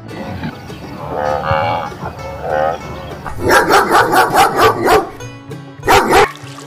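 Recorded farm-animal calls played over background music: two short drawn-out calls, then a quick run of repeated calls, about five a second, and one short loud call near the end.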